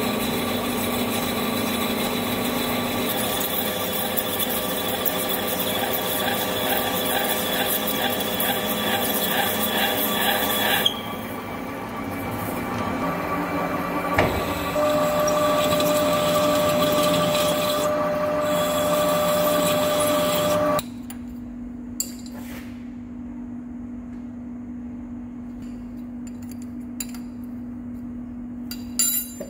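Metal lathe turning a large steel hydraulic cylinder barrel, the carbide insert cutting with a loud, steady scraping hiss; the cut changes about a third of the way in and then carries a steady high ringing tone. The cut stops suddenly about two-thirds through, leaving a low steady machine hum and a few light metal clicks.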